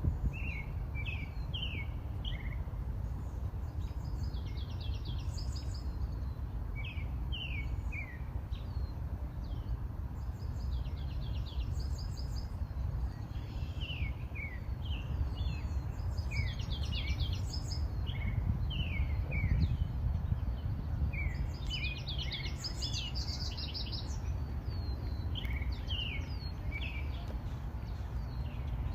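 Songbirds chirping and singing: short phrases of quick descending notes repeated again and again, over a steady low rumble of background noise.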